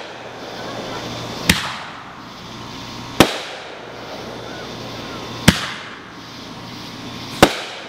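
Aerial fireworks bursting: four sharp booms roughly two seconds apart, each with a brief trailing rumble, over a steady background hiss.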